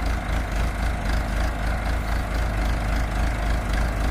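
Backhoe's diesel engine running steadily with a low, evenly pulsing rumble, starting abruptly.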